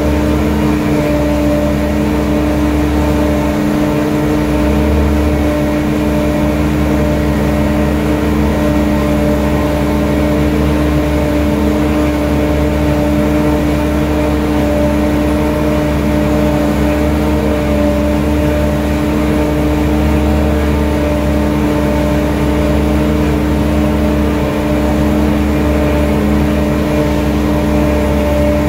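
Steady machine hum at one fixed pitch, with a low rumble underneath that swells and eases slightly.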